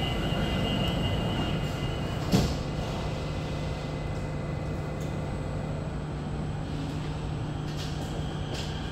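Steady low hum inside an SMRT CT251 metro train, with one sharp knock about two seconds in.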